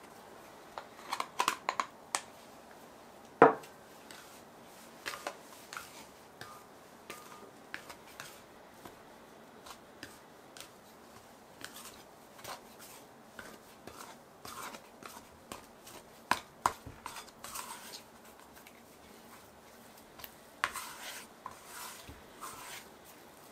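A plastic bowl scraper cutting and scraping flour and beaten egg together in a glass bowl, with irregular clicks and scrapes against the glass and one sharp knock about three seconds in. Near the end, soft, sticky bread dough is worked by hand and scraper against the bowl.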